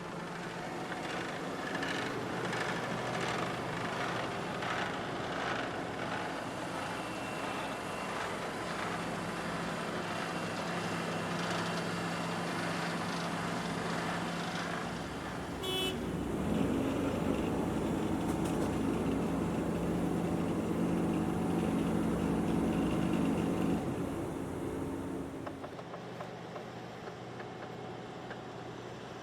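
Engines of asphalt-paving machinery running steadily. About halfway through, one heavier engine comes up louder and lower for several seconds, then drops back.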